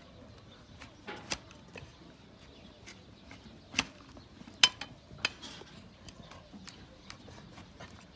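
A broad hoof-paring blade cutting and chipping into a donkey's dry, hard hoof horn: irregular sharp cracking cuts, with a few louder cracks in the middle.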